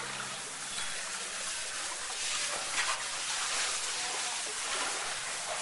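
Steady hiss of water, even and unbroken, with small swells in level and no distinct single events.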